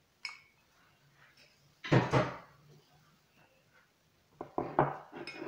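Small kitchen cups and utensils knocking on a wooden countertop and the rim of a plastic mixing bowl. A light click comes first, then a louder knock about two seconds in, and a quick cluster of taps near the end.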